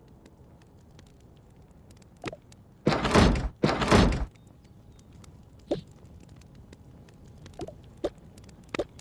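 A few soft knocks and two short, louder noisy swishes about three seconds in: handling noise.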